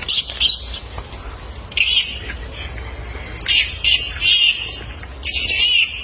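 Baby monkey giving a string of short, high-pitched, wavering squeals, the longest near the end.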